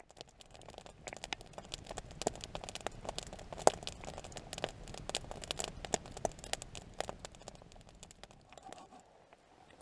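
Wood campfire crackling and popping, with sharp irregular snaps over a low steady hiss of burning, thinning out near the end.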